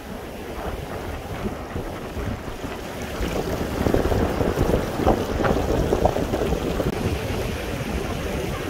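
Shallow sea waves washing up over a sandy beach, with wind rumbling on the microphone. The wash swells louder about three seconds in and eases slightly near the end.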